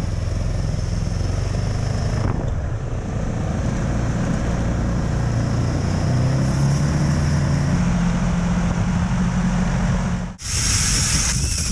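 Ski-Doo Grand Touring 600 snowmobile engine running under way, its drone rising in pitch as it speeds up in the middle. A little before the end it cuts off suddenly and gives way to a hissy rush of wind.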